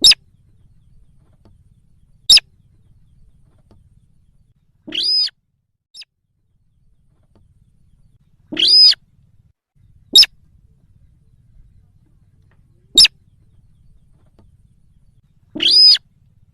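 Bird-lure recording of sintar bird calls: short, sharp single notes alternate with longer, harsher calls, a few seconds apart. There are seven calls in all, over a faint low hum.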